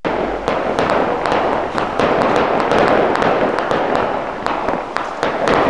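Fireworks going off: a steady hiss with a dense run of sharp crackles and pops.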